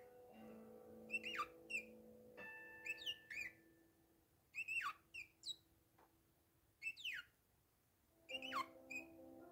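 Bourke's parakeet calling: short, downward-sweeping chirps in clusters of two or three, about five times. Soft background music with held notes plays under it at the start and again near the end.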